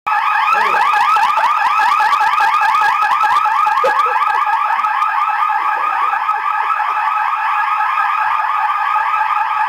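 Electronic fire alarm sounder going off. It makes a loud, fast-repeating rising sweep, about five chirps a second, steady throughout.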